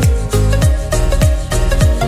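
Background electronic music with a steady beat: deep bass notes slide down in pitch on each beat, under sustained synth tones.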